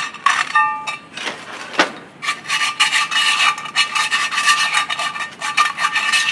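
Sandpaper scrubbed rapidly back and forth by hand on a cast-iron brake drum, cleaning its surface before it is machined on the brake lathe, with a steady metallic ring from the drum under the strokes. A few knocks as the drum is handled come first; the steady rubbing starts about two seconds in.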